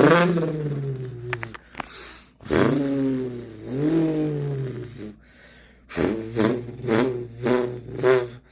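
A person vocally imitating a car engine start-up: a buzzing, engine-like drone that sweeps down in pitch, then rises and falls like a rev. Near the end it breaks into a quick, pulsing burble of about three pulses a second.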